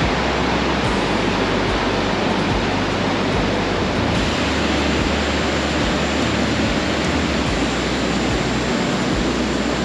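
Waterfall and river water rushing: a steady, loud, unbroken noise of falling water.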